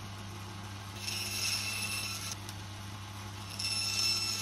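Power saw running with a steady motor hum, cutting twice through the thin plates, each cut lasting about a second and carrying a high ringing whine, about a second in and again near the end. The saw is trimming the parts to correct a wrong measurement.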